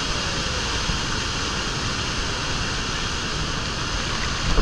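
Steady roar of Niagara's Bridal Veil Falls crashing onto the rocks close by, with spray and wind buffeting the microphone. A short thump comes right at the end.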